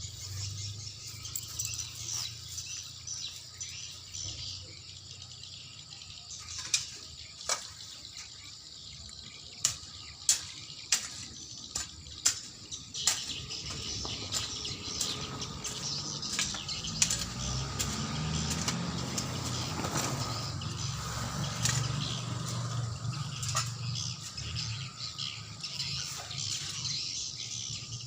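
Irregular sharp knocks and scraping of a hand tool working the ground, about a dozen strikes spread through the middle of the stretch, over a steady low hum and a faint steady high tone.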